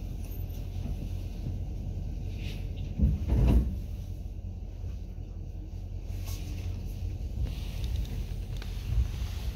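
Mugunghwa-ho passenger train car rumbling low and steady as the train begins to pull out of a station, with a heavy clunk about three seconds in and a smaller one near the end.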